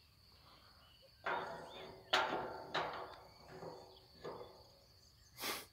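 Steel panel gate leaf knocked against its post several times, giving short ringing metallic clanks, as the lock fails to catch: the handle and its mounting plate get in the way of the lock. A short rush of noise near the end.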